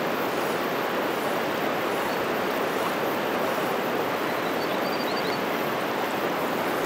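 Steady rushing of a flowing trout stream.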